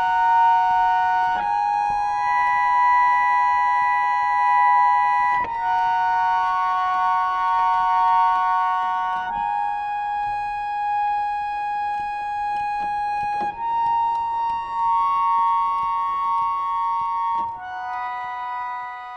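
Music: sustained keyboard chords, each held about four seconds before moving to the next.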